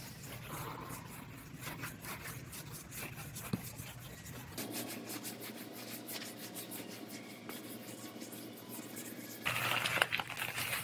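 Clear plastic masking sheeting and masking tape being handled on a car body: rustling, scratching and scraping, louder and more crinkly near the end.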